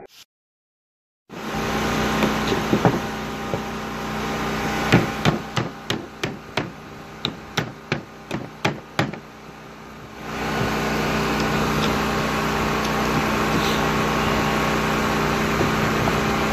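Nails being driven into cedar fence boards: a quick run of about a dozen sharp strikes, roughly three a second, over a steady machine hum that grows louder near the end.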